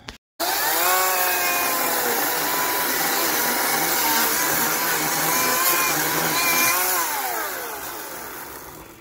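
Chainsaw cutting back dead brush: the motor spins up about a second in, runs steadily under load with small dips in pitch, then winds down near the end.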